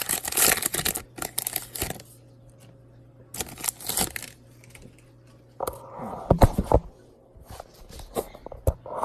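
Foil wrapper of a Pokémon TCG booster pack crinkling and tearing as it is opened, in two bursts, the first lasting about two seconds. A few soft knocks about six seconds in, then light taps and rustles of the pack and cards being handled.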